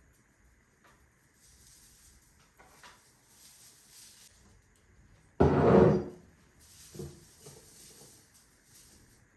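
Quiet handling sounds, with one sudden loud knock-and-rumble about halfway through that lasts about half a second and dies away, followed by a few small knocks.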